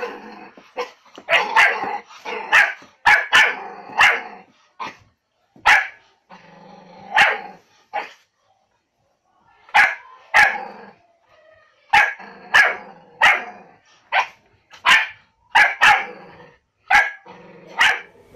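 A dog barking over and over in short, sharp barks, with a pause of about two seconds near the middle.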